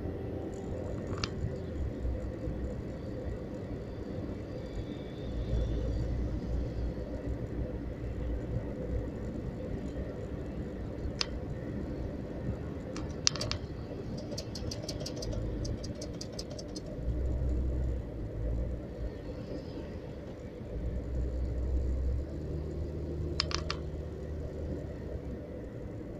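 A car driving on a paved road, heard from inside the cabin: steady engine and tyre rumble that swells now and then. A few light clicks and a short run of rapid ticks come around the middle.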